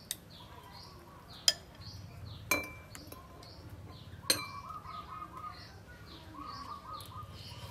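Metal spoon clinking against a glass soup bowl and a small ceramic dish, a few sharp clinks with a short ring, with birds chirping faintly in the background.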